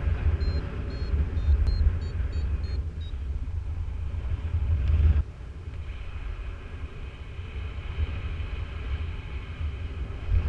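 Wind buffeting the microphone in flight, a heavy low rumble that drops off suddenly about five seconds in. Over it for the first three seconds a flight variometer gives short high beeps, two to three a second, its climb signal.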